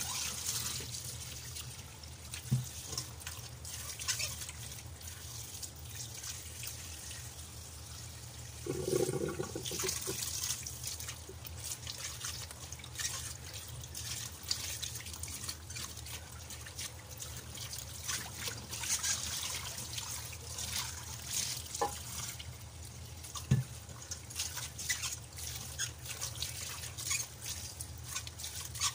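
Tap water running into a stainless steel pot in a sink, splashing as hands rub and scrub soaked spiny sea cucumbers under the stream, with a few light knocks against the pot.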